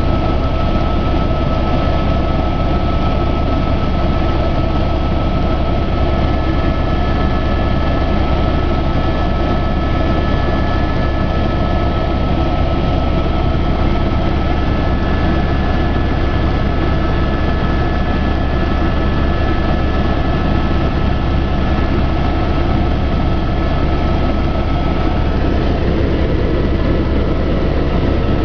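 Steady engine drone of a low-flying aircraft heard from inside the cabin, a deep unbroken hum with a faint high whine over it.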